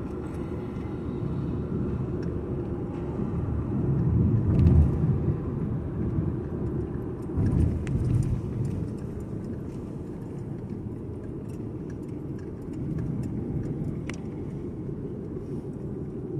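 Steady low road rumble of a car driving on a highway, heard from inside the car, with louder swells about four and eight seconds in.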